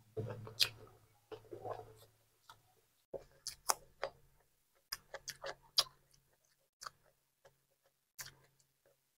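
Close-miked eating sounds: a man chewing cucumber, with irregular crunches, wet clicks and smacks of the mouth.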